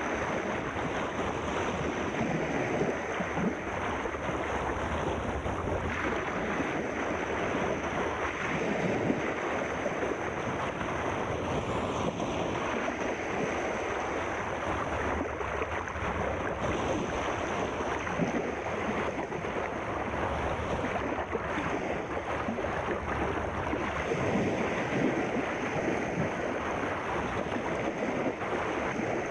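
Sea surf washing continuously, a steady rushing wash of water with no distinct breaks.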